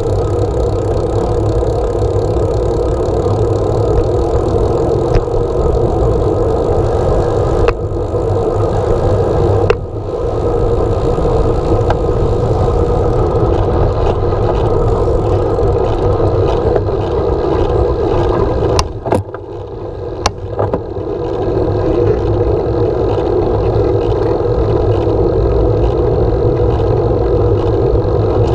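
Wind rushing over the microphone of a handlebar-mounted camera on a moving road bike, with the front tyre rolling on the road, a steady noise. It eases briefly about two-thirds through, where there are two sharp clicks.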